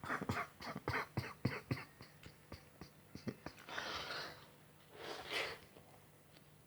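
Close-up chewing of a mouthful of jam doughnut: wet mouth clicks and smacks, about three or four a second, for the first three seconds. Two audible breaths follow, one at about four seconds and one near the end.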